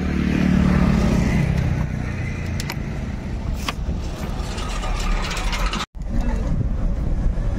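Engine and road noise of a moving car, a steady low rumble with a few sharp clicks. The sound drops out for an instant about six seconds in.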